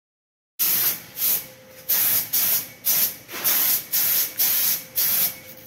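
Compressed-air gravity-feed spray gun spraying paint in about nine short bursts of hiss, each under half a second, starting about half a second in.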